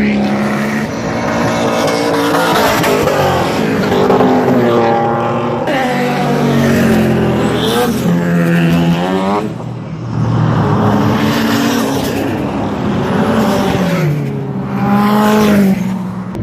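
Several cars driving hard past on a racetrack one after another, their engine notes rising through the revs and dropping again at each gear change.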